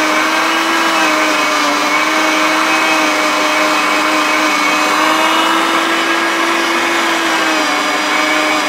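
Anko 300 W electric meat mincer's motor running steadily as it grinds a whole raw carrot, a loud, even whine; it takes the carrot without struggling. The pitch drops slightly near the end, as the pusher is pressed into the feed hole.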